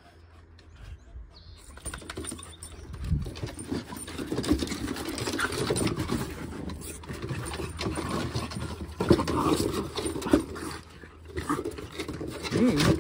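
A French Bulldog, a rat terrier and a Mudi play-fighting: growling and snarling, with claws scrabbling and knocking on wooden deck boards, starting about two seconds in. This rough growling is their normal play, not a real fight.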